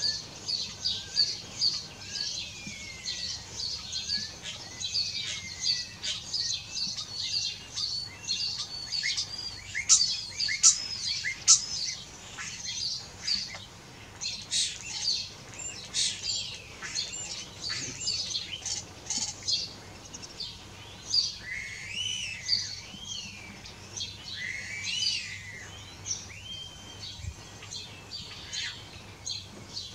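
Common starlings singing: a fast, varied stream of high chatter, sharp clicks and whistles, with slower slurred whistles rising and falling in the second half.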